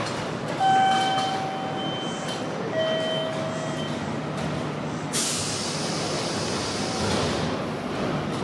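Station platform sounds on the Kintetsu Kyoto Line: a two-note falling chime, then a little past halfway a sudden loud hiss of air that fades over about two seconds, like a stopped train's air brakes releasing. A steady low hum runs underneath.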